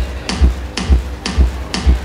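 Electronic dance music with a steady four-on-the-floor kick drum at about two beats a second and a crisp off-beat hit between the kicks.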